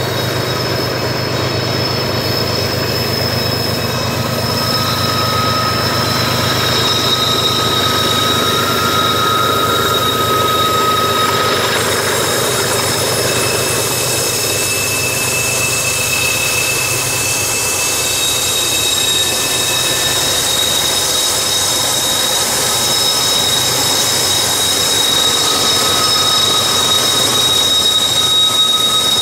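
Freight train wheels squealing against the rails on a curve: several steady high-pitched squeal tones come and go over the low rumble of the BNSF diesel locomotives. The rumble grows a little louder near the end as the lead units pass close by.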